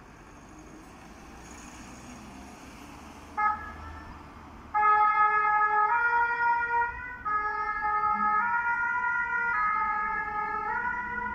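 Vehicle noise building as a fire-brigade ambulance van pulls away, a short siren blip about three and a half seconds in, then the French fire brigade two-tone siren sounding loudly from about five seconds in, stepping back and forth between its two notes about every second.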